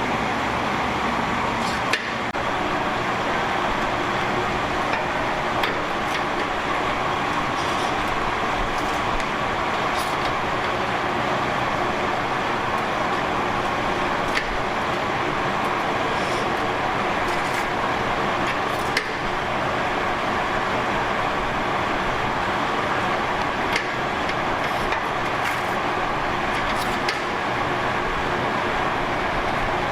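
Steady mechanical noise with scattered light clicks and knocks.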